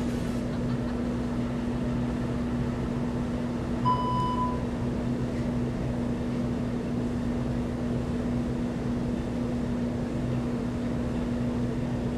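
Steady electrical or ventilation hum with a constant low tone, and one short electronic beep about four seconds in.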